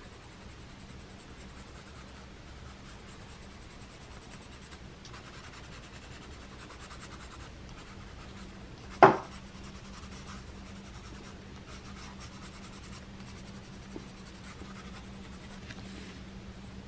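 Coloured pencil scratching across paper in shading strokes, with a single sharp knock about nine seconds in.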